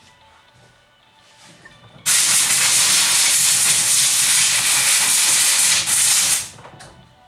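Loud steady hiss of a pressurised jet, such as compressed air or cleaner spray used on chainsaw parts, starting suddenly about two seconds in and cutting off about four seconds later.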